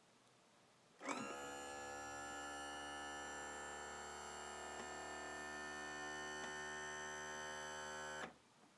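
Power trim and tilt unit of a Johnson GT 150 VRO V6 outboard, with its electric motor and hydraulic pump, running as it lowers the engine. It starts about a second in, holds a steady hum for about seven seconds, then cuts off suddenly.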